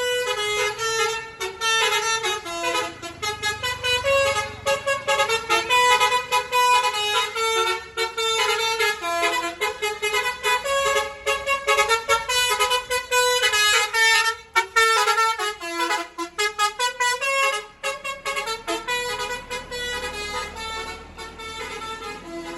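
A tourist bus's Basuri telolet horn, an electric multi-tone air horn, playing a tune in quick stepped notes without a break. It grows a little quieter near the end.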